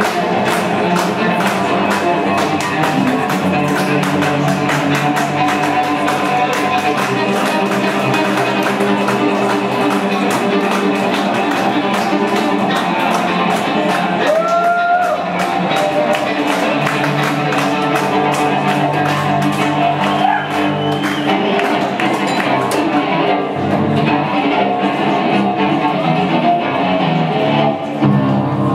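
Live experimental music for bowed cello and electronics: sustained cello and synthesized tones layered over a dense run of rapid clicks, which drops away about two-thirds of the way through and leaves the low sustained tones.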